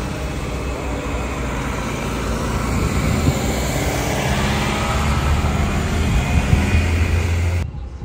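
A large motor vehicle's engine running close by, a low steady hum over traffic noise. It grows a little louder, then cuts off suddenly near the end.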